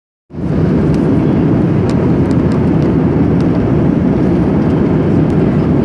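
Steady cabin noise of a jet airliner in flight: engine and rushing-air rumble, heaviest in the low range, cutting in suddenly just after the start and holding level.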